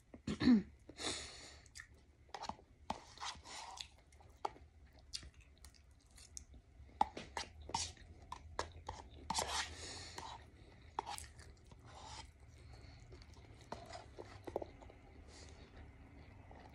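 A person chewing and eating spicy ramen noodles with shrimp and crab: irregular wet mouth smacks and small clicks, fairly quiet.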